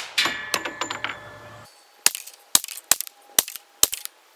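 CMMG Banshee .45 ACP pistol-caliber carbine firing 230-grain full-metal-jacket rounds from a bench. The echo of one shot dies away, then from about two seconds in comes a quick string of shots, about two a second.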